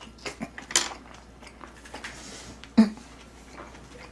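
A person eating close to the microphone: chewing and mouth noises, with scattered clicks of chopsticks against dishes. The sharpest click comes a little under three seconds in.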